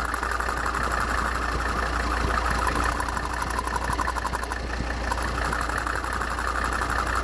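Volvo D5244T10 2.4-litre five-cylinder diesel idling, with a fast, steady rattle from the vacuum-operated EGR cooler flap vibrating and pulsating. The cause is wildly pulsing vacuum from the vacuum pump, which the mechanic puts down to a leaking check valve.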